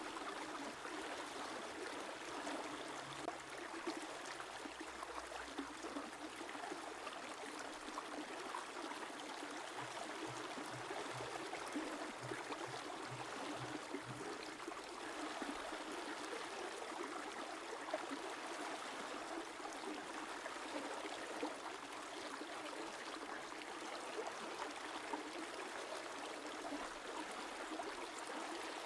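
River water flowing steadily, with an even rush and trickle.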